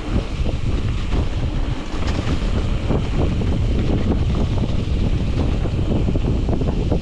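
Wind buffeting the microphone of a camera riding along on a moving mountain bike, over a low rumble of tyres on the dirt trail with frequent small knocks and rattles from the bike.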